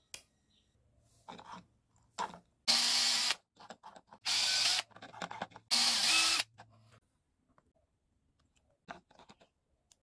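Cordless drill-driver run in three short bursts of under a second each, after two brief quieter taps of the trigger.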